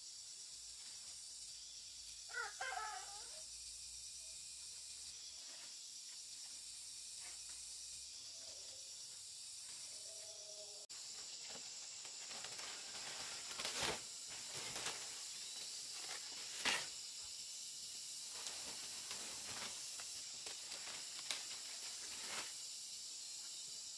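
Dry palm-leaf thatch rustling and crackling as the fronds are handled and laid on a roof frame, the loudest crackles about 14 and 17 seconds in. A steady high insect drone runs underneath, and a short animal call sounds about two seconds in.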